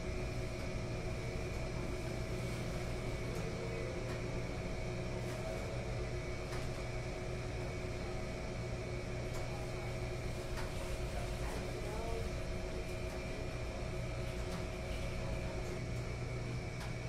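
Laundromat ambience: a steady hum of running commercial washing machines and dryers, with several constant tones and a few faint clicks.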